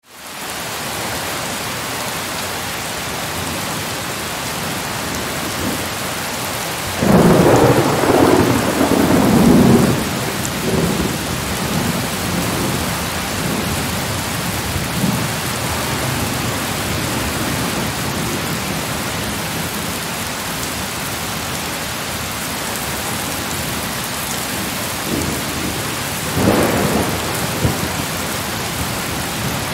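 Heavy rain falling steadily, fading in at the start. About seven seconds in, a loud peal of thunder lasts around three seconds, and a shorter, fainter rumble of thunder comes near the end.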